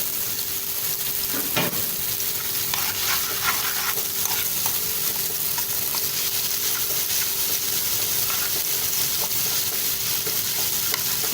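Garlic and dried coriander sizzling in hot butter and ghee in a small pan, being stirred, with a sharp knock about a second and a half in.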